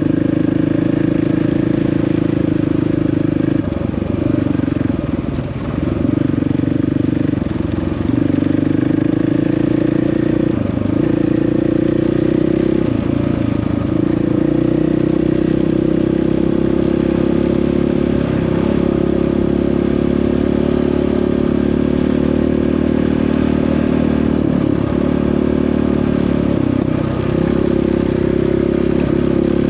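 Dirt bike engine running steadily under way, its pitch dipping briefly several times in the first half and then holding steadier.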